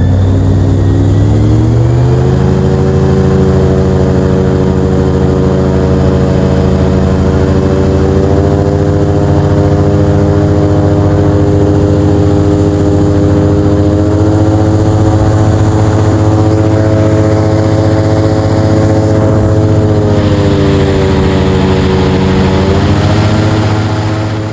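Airboat engine and propeller running loud. It revs up over the first couple of seconds, holds a steady high speed, and eases off slightly near the end.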